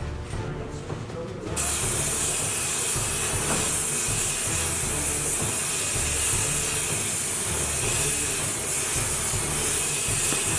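A gas torch starts hissing suddenly about a second and a half in and keeps up a steady loud hiss, heating a snapped exhaust-manifold flange bolt to free it for extraction. Background music plays underneath.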